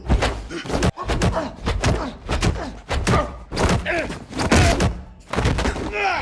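Kung fu film fight sound effects: a rapid, irregular series of punches, kicks and body blows landing, many sharp hits in quick succession.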